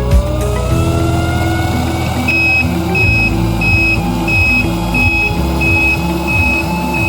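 BXH-3001 powered air-purifying respirator's blower motor whining and rising in pitch. From about two seconds in, its jammed-filter alarm beeps repeatedly, high-pitched, about one and a half beeps a second, the audible warning that the filter is blocked.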